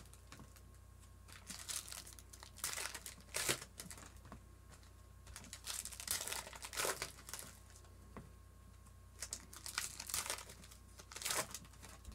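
Foil trading-card pack wrappers crinkling and tearing as the packs are opened, in several separate bursts of crackling.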